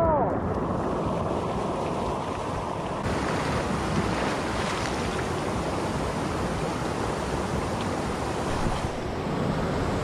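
Shallow spring-fed creek water rushing over rocks close to the microphone, a steady rush.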